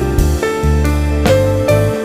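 Background music: soft melodic instrumental with sustained keyboard notes over a steady bass.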